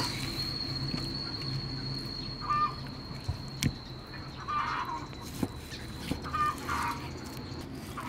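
Chickens clucking in short calls now and then, with a few sharp knocks of a cleaver cutting beef on a thick wooden chopping block. A steady high-pitched whine runs underneath and stops near the end.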